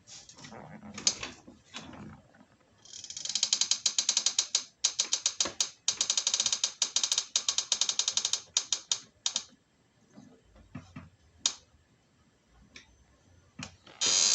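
A chair's mechanism clicking and creaking. A few creaks come first, then from about three seconds in a long run of rapid ratchet-like clicks lasts some six seconds, broken by short gaps, before thinning to scattered single clicks.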